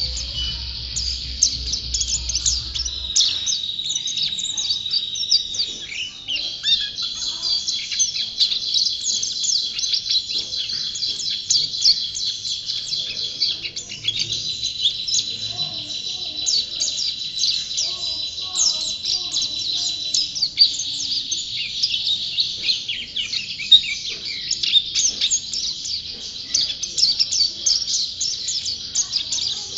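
White-eye (pleci) songbird singing continuously: a rapid, unbroken stream of high twittering chirps and trills.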